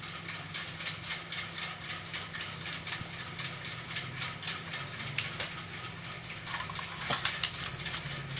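Small plastic gear mechanism of a toy running: a rapid, even run of clicks over a low steady hum, with a few louder clicks near the end.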